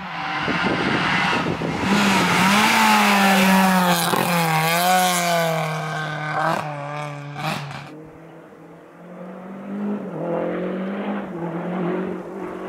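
Historic rally car passing flat out on a stage, engine pitch rising and dipping through gear changes, with a few sharp cracks around the shifts. After about eight seconds it drops away and a more distant engine builds again.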